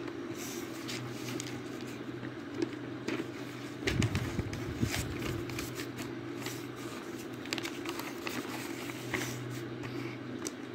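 Pencil scratching on paper in short, irregular strokes, over a steady low hum, with a dull bump about four seconds in.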